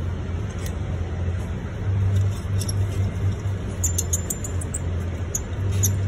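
Steady low engine rumble, the hum swelling and fading, with a cluster of light metallic clicks about four seconds in and one more near the end as the fan's nuts are turned off the hub studs by hand.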